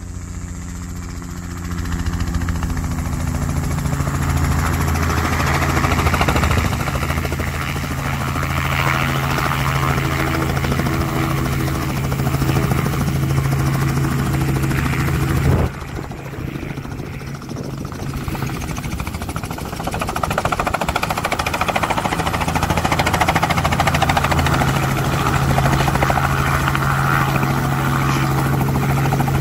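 Light helicopters hovering and settling in to land close by: a steady low rotor beat and engine hum that grows louder about two seconds in. It drops off abruptly about halfway through, then builds again as another helicopter comes in close.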